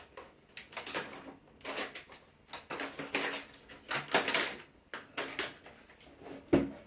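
Irregular rustling and clicking of plastic packaging and small vinyl toy pieces being handled, as someone searches through them for a missing accessory.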